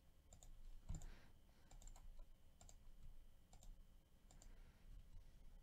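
Faint computer mouse clicks, about six of them spaced roughly a second apart, each a quick double tick of button press and release, over near-silent room tone.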